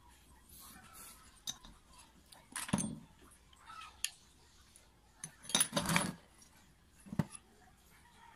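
Metal clinks and knocks as the cast motor housing and stator of a disassembled half-horsepower water pump are handled and shifted on a table, with a screwdriver against the winding leads. One knock comes about three seconds in and a cluster of louder clinks about six seconds in, with another near the end.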